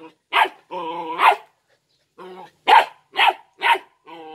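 Belgian Malinois puppy barking in quick sharp yaps, five in all, with lower, longer growling sounds between them.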